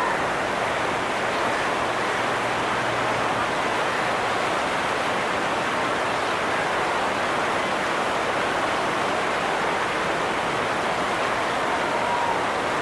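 River water rushing steadily, a continuous even roar with most of its sound in the middle and upper range.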